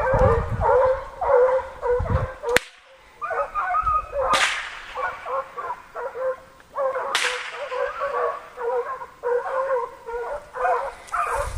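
A pack of American foxhounds baying on a deer's trail, many voices overlapping. Sharp cracks cut in about two and a half, four and a half and seven seconds in.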